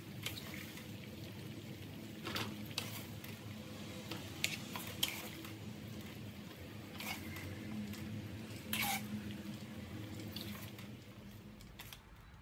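Broccoli being scooped out of hot water in a metal wok with a wire-mesh skimmer: water sloshing and dripping, with several sharp clinks of the skimmer against the pan. A steady low hum runs underneath.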